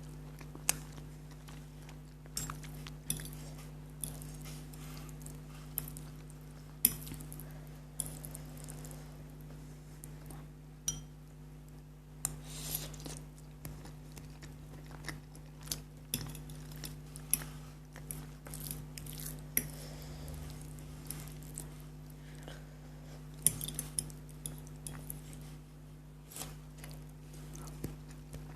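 Noodles being eaten: scattered clinks of cutlery against the dish, with chewing sounds in between, over a steady low hum.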